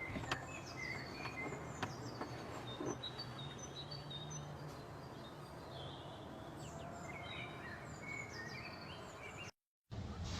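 Several small birds chirping and calling in short, overlapping phrases over a steady background hiss, broken by a brief gap of silence near the end.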